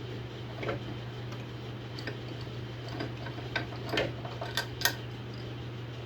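Scattered light metallic clicks and taps as the table of a belt and disc sander is unbolted and handled, over a steady low hum.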